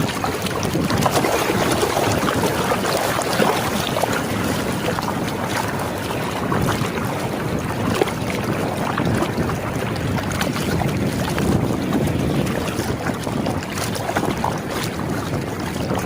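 Wind buffeting the microphone: a steady rough rush of noise full of small crackles.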